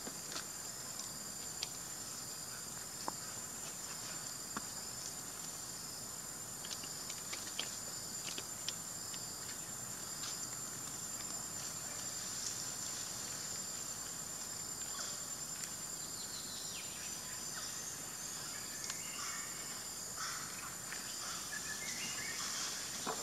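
Forest insects drone steadily in a continuous high-pitched tone. Scattered light clicks and rustles come through it, and from about two-thirds of the way in there are short chirping calls.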